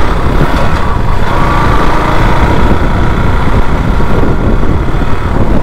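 KTM RC motorcycle's engine running steadily at low riding speed, heard from the rider's seat with wind rumbling on the microphone.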